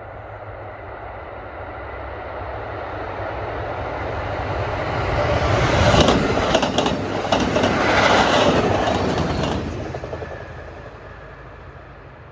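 Train passing by: the rumble builds, peaks about halfway with a run of wheel clicks over the rail joints, then fades away.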